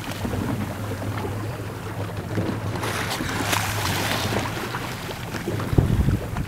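A boat's engine hums steadily and low under water splashing and sloshing close by. Wind gusts on the microphone near the end.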